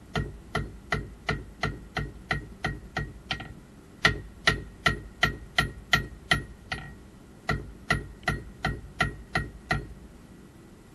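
Hand hammer forging hot steel on an anvil, about three blows a second, each with a short metallic ring. The blows come in three runs with brief pauses between them and stop near the end.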